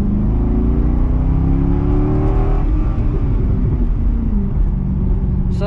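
Corvette V8 heard from inside the cabin during a hard acceleration pull: the engine note climbs steadily in pitch, then the revs drop sharply about two and a half seconds in and the engine settles into a lower, steady drone.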